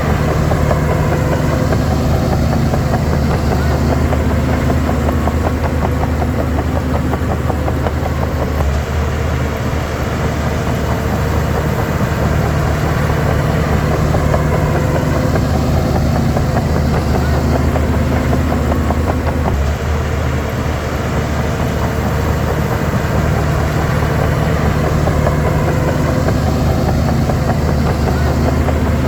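Bulldozer's diesel engine running steadily and loudly, its sound swelling slightly about every eleven seconds.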